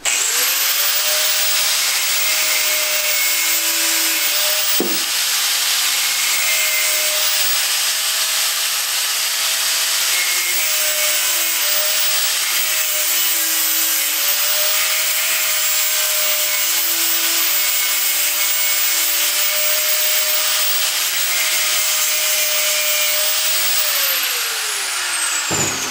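Handheld power tool cutting off excess material, running with a steady high whine and hiss. It spins down with a falling whine near the end. A single sharp knock comes about five seconds in.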